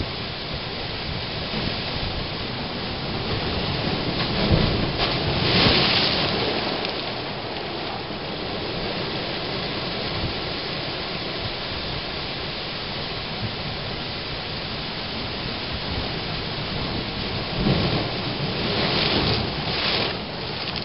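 Ocean surf washing against an a'a lava shore and surging through a seashore blowhole. A steady rushing swells twice, once about four to six seconds in and again near the end, as waves force water through the lava.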